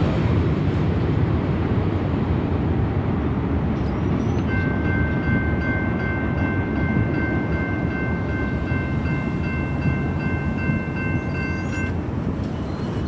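Rumble of a passing freight train with wind on the microphone. From about four seconds in, a railroad crossing bell rings steadily and stops near the end, as the gate arms go up.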